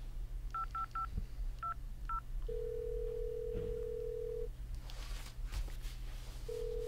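Phone keypad tones beeping five times as a number is dialled, then the ringback tone of the outgoing call: one ring of about two seconds, a pause, and a second ring starting near the end.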